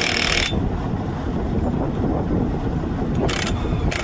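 Low, steady rumble of an idling truck engine with wind buffeting the microphone.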